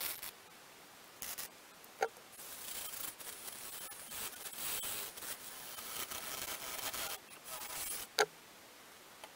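MIG welder stitch-welding a steel repair panel on: a few short crackling bursts, then a crackling, sizzling run of about six seconds with brief breaks. A sharp click comes just before the run starts and another just after it ends.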